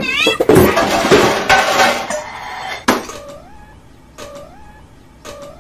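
Sound effects of an animated channel intro. A loud, noisy rush opens with a quick gliding tone and runs for about three seconds, ending in a sharp click. Short gliding tones follow about once a second.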